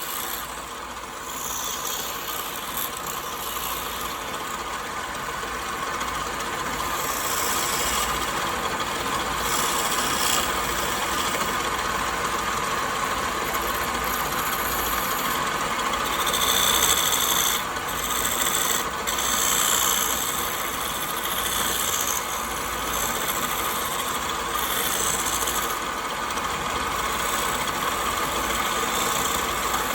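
A power tool's motor running while it works wood, with a steady rasping, abrasive sound and brighter scraping bursts that come and go.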